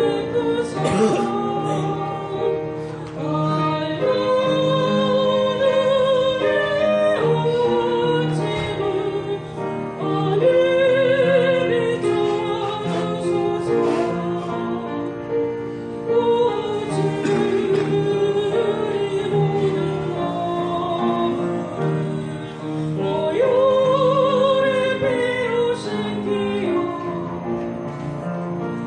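A woman singing a Korean gospel hymn solo in a classical, operatic style, holding long notes with a wide vibrato, over instrumental accompaniment.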